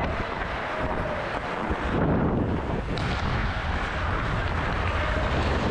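Wind rushing over a head-mounted action camera's microphone as the wearer skates fast, with ice skate blades scraping and gliding on the ice in surges.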